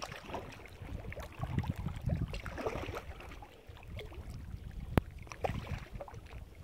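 Kayak being paddled into grassy shallows: irregular paddle splashes and the hull swishing through tall grass, with one sharp knock about five seconds in. Wind rumbles on the microphone underneath.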